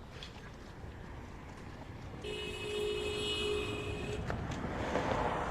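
A vehicle horn sounds one held blast of about two seconds over steady traffic rumble. Near the end a louder rush of noise rises, like a vehicle passing.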